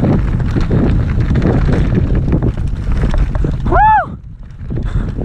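Wind buffeting the microphone over the rattle and clatter of a mountain bike riding down a rough trail, with a rider's shouted "Woo!" about four seconds in, after which it briefly goes quieter.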